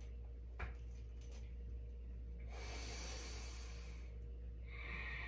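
A person breathing deeply: a long breath out, then a breath in near the end, with a single soft click about half a second in, over a steady low hum.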